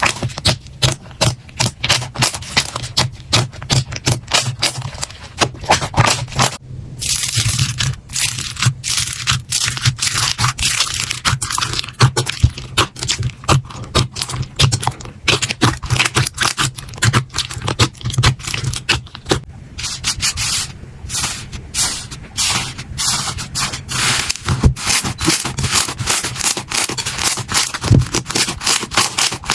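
Slime being squeezed, pressed and poked by hand: a dense, irregular run of sticky clicks, crackles and scraping sounds, with a brief break about seven seconds in where the texture changes.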